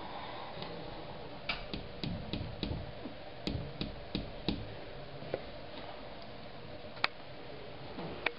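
Irregular light clicks and soft thumps in a small room, a dozen or so clustered over a few seconds, then a single sharper click about seven seconds in and another near the end.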